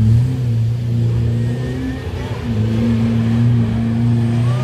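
Off-road 4x4 engine revving hard, held at steady high revs, easing off briefly about two seconds in and picking up again as the vehicle works in a deep mud pit.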